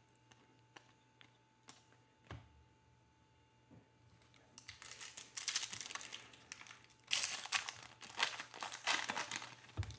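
A few faint taps, then from about four and a half seconds in a Panini Mosaic trading-card pack's foil wrapper crinkles and tears in repeated bursts as it is ripped open.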